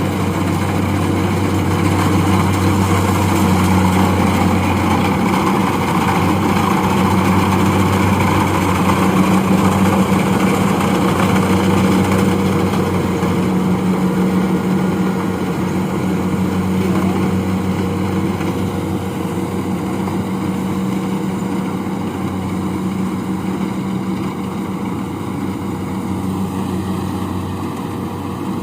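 A rice combine harvester's engine runs steadily as it harvests paddy, a constant drone with a low hum, growing slightly fainter over the second half.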